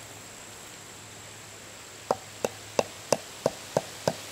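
A tent stake being tapped into the ground: sharp knocks, about three a second, starting about two seconds in. A faint steady insect trill runs underneath.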